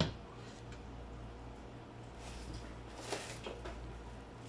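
A few faint clicks and knocks about three seconds in, over a steady low hum.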